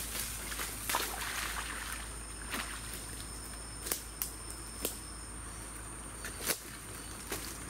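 Outdoor ambience: a steady hiss with a thin high steady tone, broken by a handful of short sharp clicks, the sharpest about six and a half seconds in.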